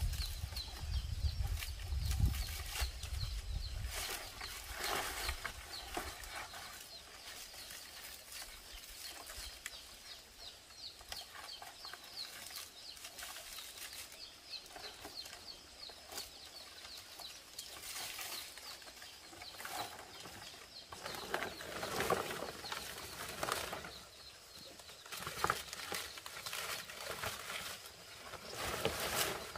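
Outdoor sounds: a fast run of small high chirps for the first half or more, with scattered bursts of rustling or scraping noise.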